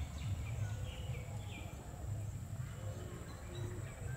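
Scattered short chirps of small birds, quick notes gliding up and down, over an uneven low rumble and a steady high-pitched whine.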